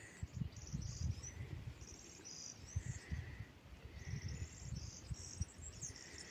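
Crickets chirping in short, high, pulsed trills that repeat about once a second, with faint irregular low thumps underneath.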